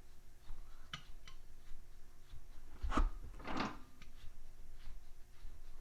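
Parts or tools being handled in a small workshop: scattered light clicks, a sharp knock about three seconds in, then a short scraping rub.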